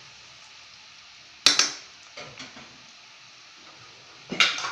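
Cauliflower pieces deep-frying in hot oil in a steel pan, a steady sizzle. A stirring spoon clatters sharply against the pan twice, about a second and a half in and again near the end.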